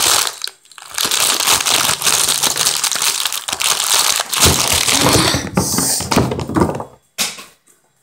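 A plastic bag of chips crinkled and squeezed right against the microphone: a loud crackly rustle with a brief pause about half a second in, turning to lower, softer handling noise in the second half.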